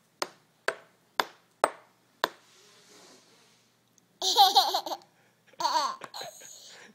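A toddler's belly laughs: two bursts of high-pitched giggling about four and five and a half seconds in. Before them comes a run of five short sharp clicks about half a second apart.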